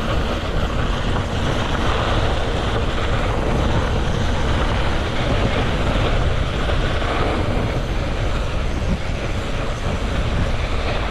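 Mountain bike descending a loose dirt and gravel trail at speed: a steady rush of wind on the on-bike camera's microphone, heaviest in the low rumble, mixed with tyre noise on the gravel.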